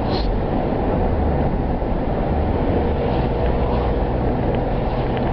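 Steady engine and road noise inside a car's cabin while driving: an even, low rumble with no single event standing out.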